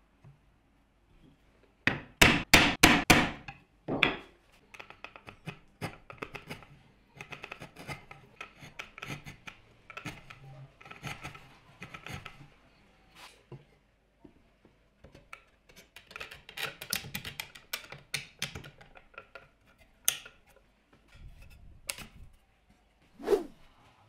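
Bench chisel paring waste out of a notch in an ash board: a quick run of about five sharp knocks about two seconds in, then many short scraping, shaving strokes of the blade through the wood, with a few more single knocks near the end.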